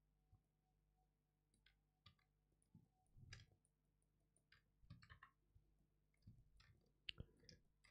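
Near silence, broken by faint, scattered clicks of a computer keyboard and mouse, several in quick succession around the middle.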